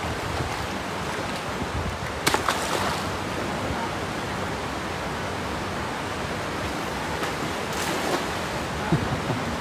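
Steady wash of river water rippling and flowing in the shallows, with two short sharp sounds, one about two seconds in and one near the end.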